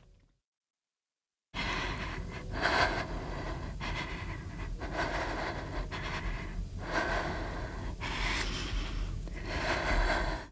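A woman breathing hard in gasps, about one breath a second, starting suddenly about a second and a half in, over a low rumble.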